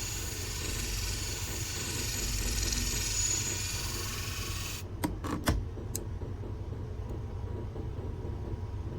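A curved grooming-shear blade is ground on a motorised sharpening machine: a steady grinding hiss that cuts off abruptly about five seconds in, followed by a few sharp clicks. The machine's motor keeps humming underneath throughout.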